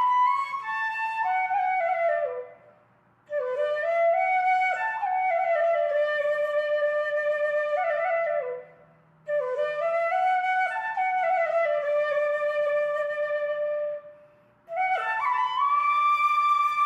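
Background music: a solo flute playing a slow melody in phrases that often fall in pitch. Three short pauses of about a second break the phrases.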